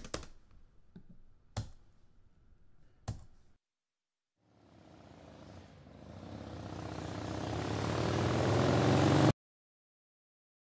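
A few sharp clicks about every second and a half, then a vehicle engine sound effect that grows steadily louder for about five seconds and cuts off abruptly.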